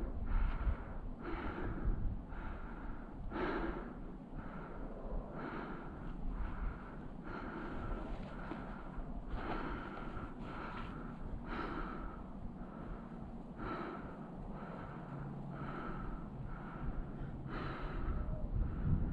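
A climber breathing hard from exertion, about one breath a second, with a low wind rumble on the microphone.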